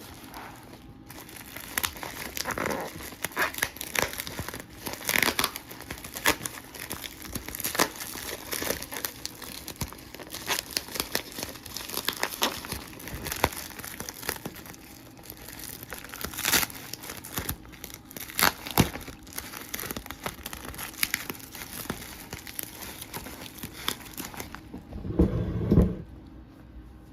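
Plastic packaging crinkling and tearing in irregular bursts as a parcel is unwrapped, with a louder, deeper rustle near the end.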